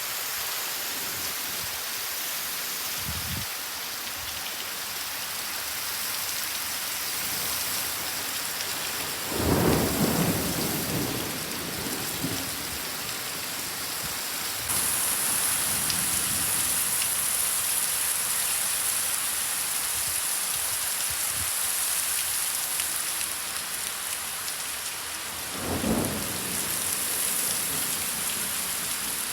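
Heavy rain pouring steadily in a thunderstorm, with two rumbles of thunder, one about ten seconds in and one near the end. The rain gets louder about halfway through.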